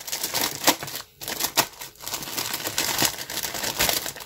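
Clear plastic bag crinkling as hands handle it and take out a clear plastic model-kit sprue: a dense run of crackles, broken by two short pauses about one and two seconds in.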